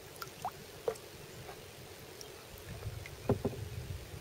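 Quiet sounds from a kayak on the water: faint water noise with a few light knocks and drips, two of them close together near the end.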